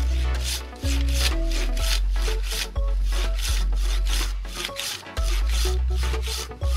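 A Silky Sugoi 360 curved pruning saw cutting through a log by hand, a steady run of quick, regular saw strokes, about two a second. Background music with a heavy bass line plays underneath.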